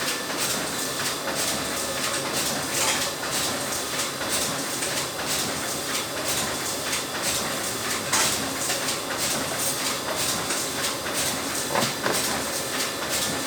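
Laminating machine running steadily, a hissing mechanical noise with frequent irregular clicks and clatter.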